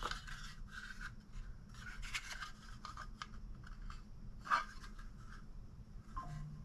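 Faint rubbing and scraping of a hard competition holster being handled, with a few light clicks and one sharper tick about four and a half seconds in.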